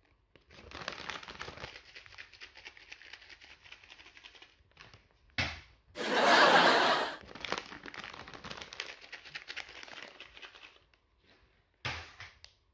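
Plastic crinkling from small wrapped packets of soybeans being handled: long stretches of fine crackling, a louder rustling burst about six seconds in, and a couple of sharp knocks.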